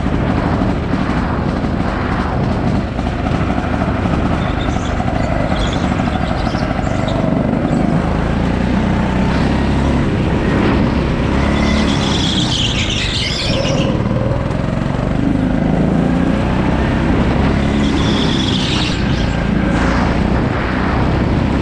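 Go-kart driven at speed around an indoor track, heard from the driver's seat: its motor runs steadily, the pitch rising and falling through the corners. Tyres squeal briefly about halfway through and again near the end.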